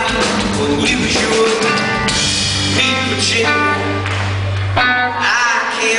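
Live rock band playing: a male lead vocal over guitar, drums and keyboard, with a low bass note held for a couple of seconds around the middle.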